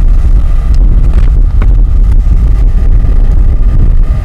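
Wind buffeting the microphone: a loud, steady low rumble, with a faint click about one and a half seconds in.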